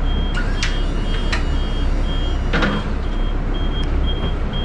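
City bus idling at a stop with its door open, its door/wheelchair-ramp warning beeper sounding short high beeps about twice a second. A few clicks and knocks, the loudest about two and a half seconds in.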